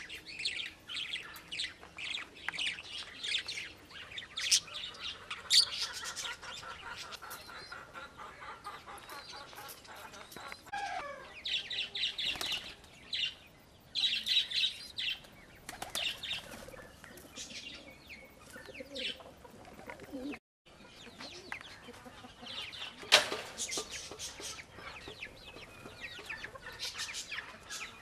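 Pigeons flapping their wings in repeated short bursts, with bird chirps among them. The sound drops out for a moment about two-thirds through, and a single sharp click stands out a little after that.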